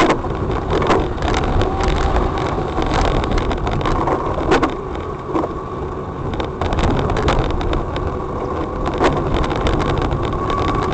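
Car driving over a rough, badly repaired road: a steady rumble of engine and tyres, with frequent short knocks and bumps.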